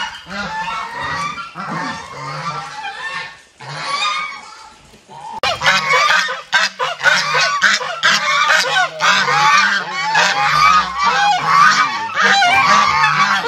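A flock of farm fowl calling together, many overlapping calls at once. The calling thins to a lull about four seconds in, then comes back louder and denser.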